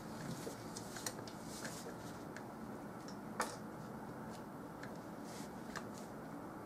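Scattered small clicks and taps from a paintbrush and painting tools being handled, with a few soft swishes, over a steady low hiss. One sharper click comes about three and a half seconds in.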